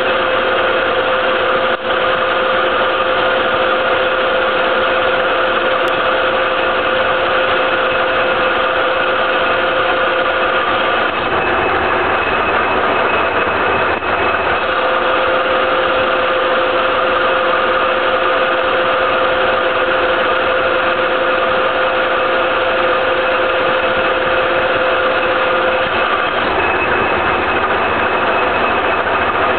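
Soviet 1K62 engine lathe running at 1250 RPM, its geared headstock whining steadily while a Sandvik turning tool takes a 5 mm deep cut along a C45 (SAE 1040) steel bar. The strongest tone of the whine fades for a few seconds midway and again near the end.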